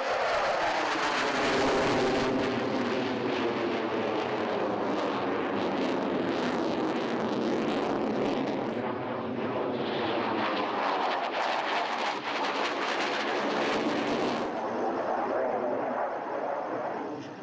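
Mikoyan MiG-29 fighter jet's twin Klimov RD-33 turbofans in a fast, low display pass: a loud jet roar with a rough crackle, its pitch falling in the first couple of seconds as the jet passes. The roar keeps on through the manoeuvres, and the high hiss drops away about three seconds before the end.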